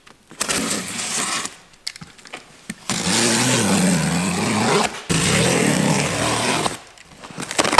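A small motor, like a power tool's, running in bursts: a short one near the start, then two longer runs from about three seconds in with a brief break between them, its pitch wavering.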